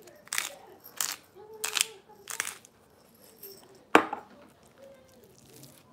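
Pepper mill grinding black pepper in four short strokes, evenly spaced about two-thirds of a second apart, then a single sharp knock about four seconds in.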